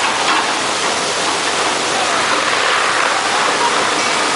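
A dense mass of small fish thrashing and splashing at the surface of a purse seine net pulled tight against the boat's side, a steady splashing hiss.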